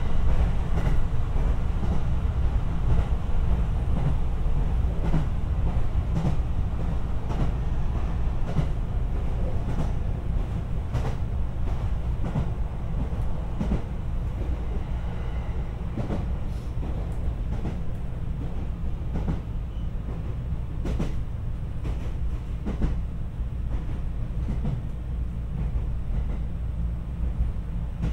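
Running noise inside a JR West 227 series 'Urara' electric multiple unit at speed: a steady low rumble with occasional clicks from the rails. The car is a motor car, yet it runs quietly and its traction motors are hardly heard.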